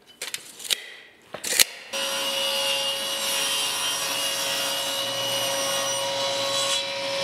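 Table saw running steadily with a constant motor whine as it rips a strip of plywood. It comes in about two seconds in, after a short quiet stretch with a few sharp clicks and knocks.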